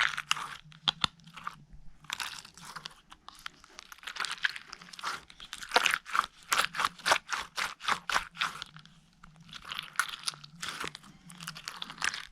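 Slime being squeezed and pressed by hand, giving a string of sharp crackling pops and clicks in clusters, fastest and loudest around the middle.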